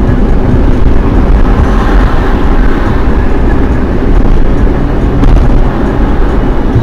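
Steady low rumble of a car cruising at highway speed, heard from inside the cabin: tyre roar on the asphalt mixed with engine and wind noise.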